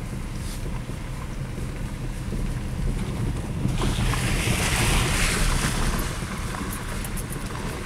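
Car rumble heard from inside the cabin while driving slowly, with a steady low drone. A louder hissing rush swells from about four seconds in and fades by about six and a half seconds.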